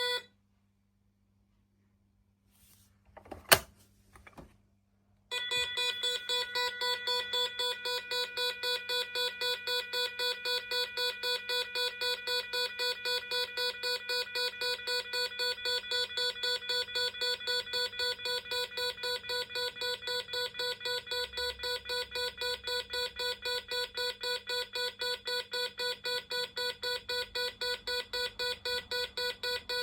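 Electronic alarm tone from a Gardtec 370 intruder alarm system. A steady tone cuts off at the start, a sharp click follows about three and a half seconds in, and a little after five seconds a pulsing alarm tone starts, repeating in fast, even beats.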